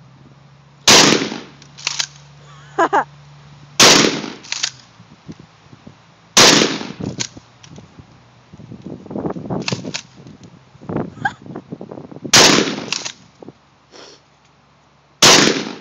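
Shotgun firing five shots, spaced a few seconds apart, each a sharp loud blast with a short tail, with smaller clicks and knocks between the shots.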